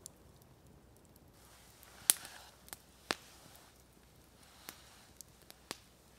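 Campfire crackling: a faint steady hiss broken by sharp, irregular pops from the burning wood, the loudest about two seconds in.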